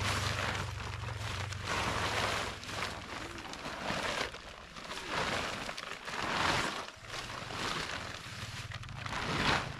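Nylon tent fabric rustling and crinkling as the tent is pulled out of its stuff sack and shaken out, in repeated swells about once a second.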